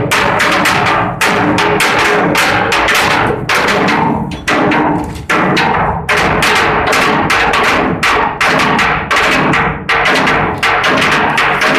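Loud, irregular hammering on steel, several overlapping blows a second, from work on a ship's hull.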